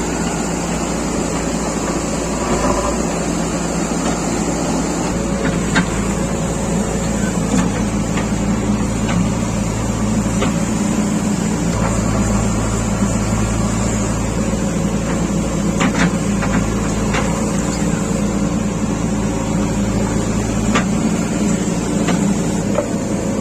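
JCB 3DX backhoe loader's diesel engine running steadily under work, with a few sharp knocks here and there.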